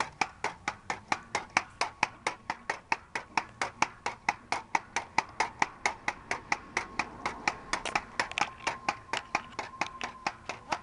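Pogo stick bouncing steadily on asphalt: an even run of sharp clacks from the spring and the tip striking the ground, about four or five a second.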